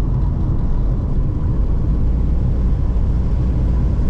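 Car driving on a rough, broken mountain road, heard from inside the cabin: a steady low rumble of engine and tyres.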